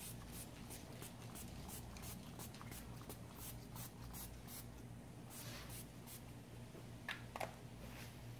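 Case lube being misted from a pump spray bottle over rows of brass .223 rifle cases: quick short squirts, three or four a second, then a couple of longer hisses.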